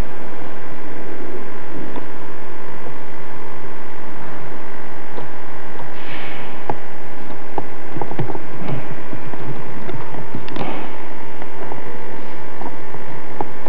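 Steady electrical hum made of several held tones, with scattered faint clicks and knocks in the middle and a brief hiss about six seconds in.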